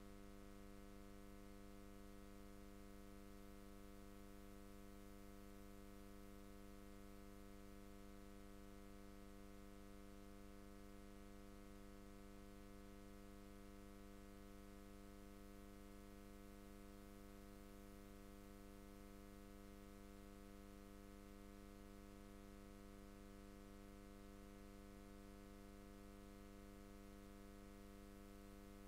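Near silence with a faint, steady electrical hum and light hiss, unchanging throughout.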